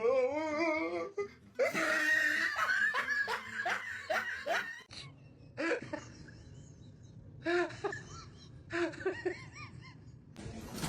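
A person laughing hard: a long burst of helpless laughter, followed by several shorter bursts.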